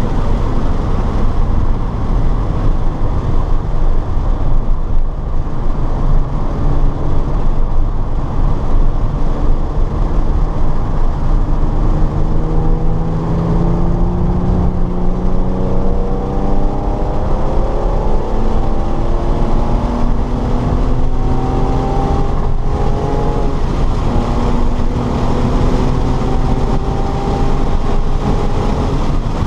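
Car engine on a racetrack lap, revving up repeatedly and dropping back, as with gear changes under hard acceleration, over heavy road and wind noise.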